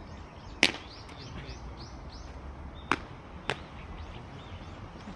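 Three sharp smacks, the first and loudest about half a second in and two more close together around three seconds in. A bird calls a quick run of short high chirps after the first smack, over a steady low rumble of wind on the microphone.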